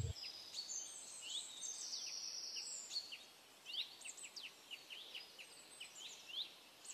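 Faint bird chirps in the background: many short, high chirps scattered throughout, with a few longer high whistled notes in the first half.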